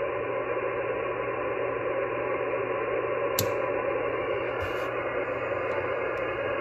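Steady static hiss from a Yaesu FT-991 transceiver's speaker, receiving upper sideband on 10 meters (28.395 MHz) while no station is talking. One sharp click comes about halfway through.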